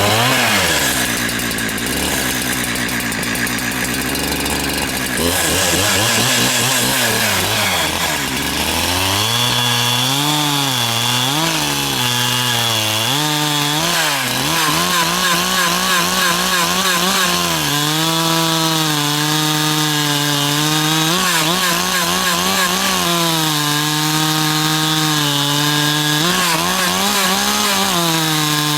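Two-stroke 372XP-type chainsaw running at full throttle and cutting through a log, its engine pitch sagging and picking back up again and again as the chain bites into the wood.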